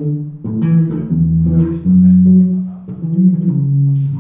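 Electric bass guitar played solo: a slow line of plucked notes, several of them held for about a second.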